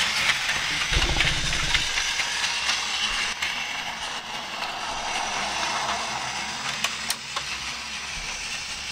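Battery-powered Plarail toy Shinkansen running on plastic track: its small electric motor and gearbox whir, with a rattling clatter from the wheels on the track, getting fainter over the second half. A brief low thump about a second in.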